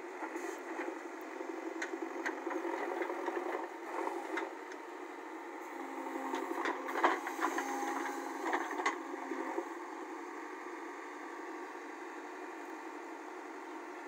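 JCB backhoe loader's diesel engine running steadily while the backhoe arm digs. Knocks and clanks from the bucket and boom come through it, thickest and loudest between about six and nine seconds in.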